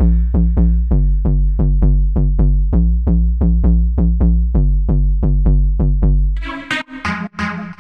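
Serum 2 synthesizer preset demo: a deep sustained bass line with short, evenly repeated notes about four a second on top, in a UK garage style. About six and a half seconds in, the bass stops and a brighter, choppy synth pattern takes over.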